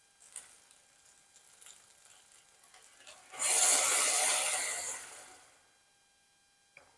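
Water poured from a jug into a pot of seasoned rice, adding the cooking water. It is a loud, even rush of about two seconds that starts a little after three seconds in and tails off, with a small click near the end.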